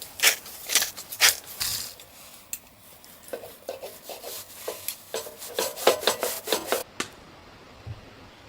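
A quick, irregular run of sharp scrapes and clicks, like hard objects being rubbed and knocked together, that stops suddenly about seven seconds in.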